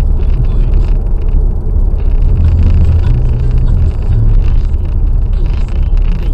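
Car driving at motorway speed: a steady low rumble of engine and road noise.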